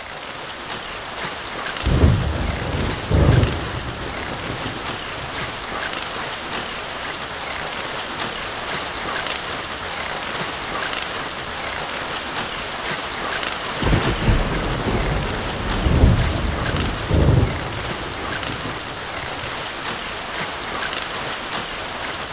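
Steady heavy rain pouring down, with low rumbles of thunder breaking through: two near the start and three more in quick succession past the middle.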